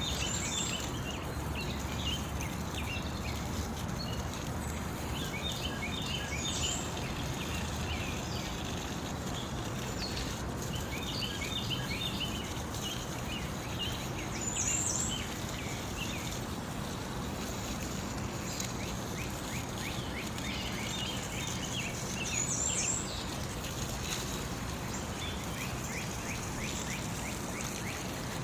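Small birds chirping and trilling in a busy chatter, with a higher, clearer call standing out every several seconds, over a steady rush of running water.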